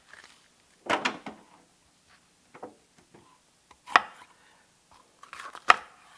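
Chef's knife cutting through an onion on a wooden butcher-block cutting board. There are four separate cuts, each ending in a sharp knock of the blade on the wood, spaced a second or more apart.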